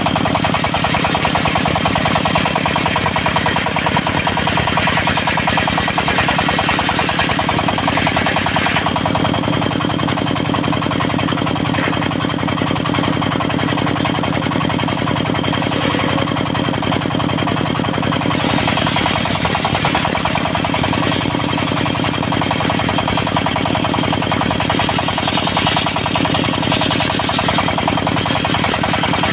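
Diesel engine of a portable circular-saw sawmill running steadily with a rapid chugging beat. Its note shifts about nine seconds in.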